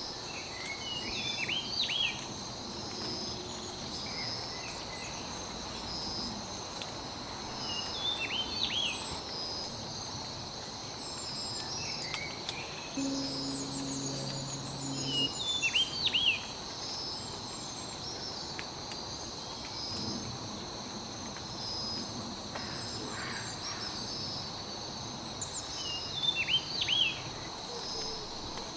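Forest soundscape: a steady high-pitched insect drone with an evenly pulsing cricket-like chirp, while a songbird sings short, bright, quickly sliding phrases every few seconds.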